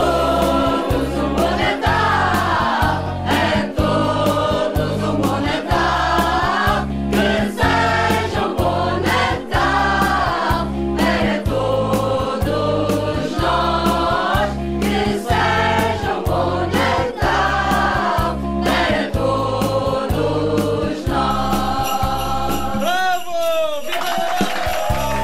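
Mixed choir of men's and women's voices singing a Christmas song in Portuguese over an accompaniment with a steady beat. Near the end the beat drops out, leaving a few gliding sung notes.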